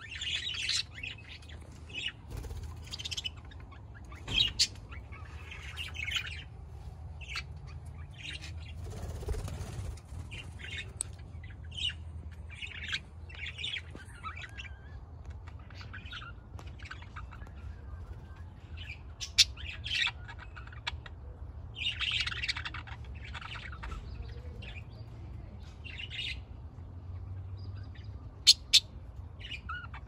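Budgerigars chirping and chattering in short, busy bursts, with a few sharp, louder calls near the end, over a steady low rumble.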